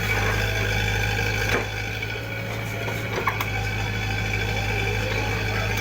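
Diesel engine of heavy machinery running steadily at idle, with a couple of brief knocks.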